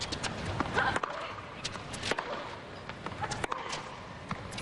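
Tennis rally: racquets striking the ball back and forth with sharp pops about once a second, mixed with the ball bouncing on the hard court.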